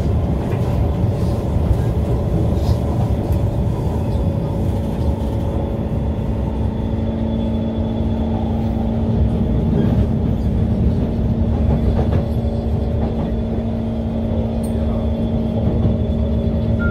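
SMRT Kawasaki C151 MRT train running at a steady pace: a continuous low rumble from the wheels on the track, with a steady hum that sets in about four seconds in.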